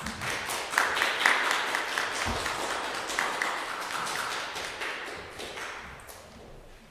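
Audience applauding, starting suddenly and loud, then dying away over the last couple of seconds.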